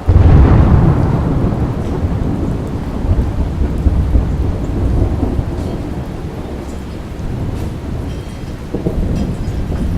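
A thunderclap that breaks in suddenly and rolls on as a long, low rumble, loudest in its first second and swelling again near the end, over steady rain.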